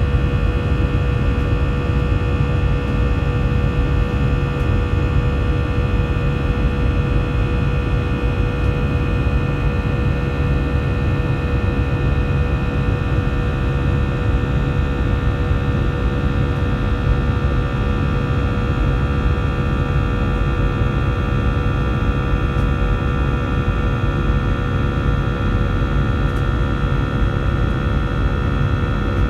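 Airbus A321 jet engines heard from inside the cabin, running steadily during the climb-out: a dense low rumble with several steady whining tones over it.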